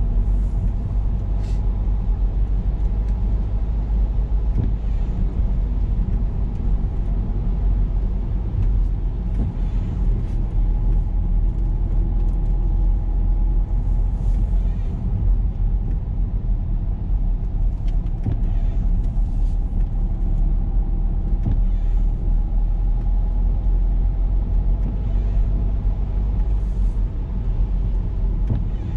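Car driving at a steady speed: a steady low rumble of road and engine, with a faint engine tone over it and a few faint ticks.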